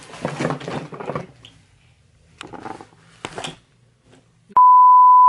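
Rustling and a couple of clicks as the phone camera is handled, then near the end a loud, steady, single-pitch censor bleep starts abruptly.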